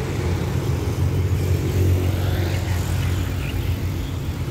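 Diesel truck engine running at low speed as the truck moves along the road, a low rumble that swells about two seconds in and then eases off.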